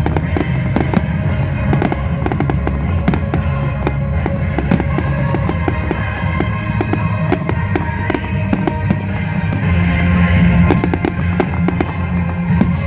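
Fireworks bursting and crackling, with many sharp bangs in quick succession, over continuous music with a heavy bass.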